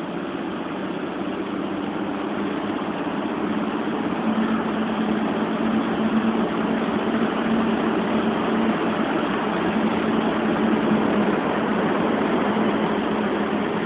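PKP class EU07 3 kV DC electric locomotive pulling slowly away with a train: a steady electric hum with a low tone over a noisy rumble, growing louder as the locomotive passes and easing off near the end.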